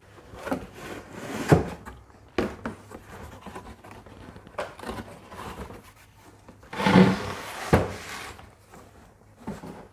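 Large cardboard box being handled and turned over by hand: rubbing and scraping of cardboard with a few knocks, the loudest about a second and a half in and again about seven seconds in.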